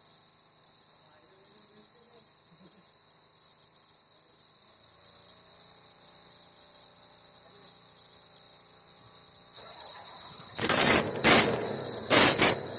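Steady high chirring of crickets. Near the end a much louder rushing noise with a few surges comes in and covers everything.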